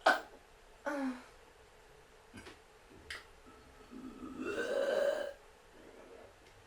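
A person belching deliberately: a sharp sound right at the start, a short burp about a second in, and a longer burp about four seconds in that lasts about a second, with a couple of faint clicks between.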